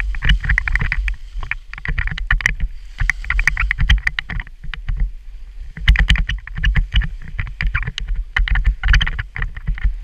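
Skis sliding and scraping over packed snow, an uneven stream of scrapes over a low rumble.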